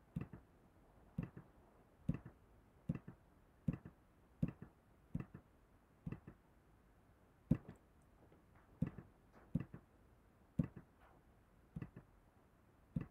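Computer mouse button clicked over and over at an uneven pace of about one click a second, each click a short double snap of press and release.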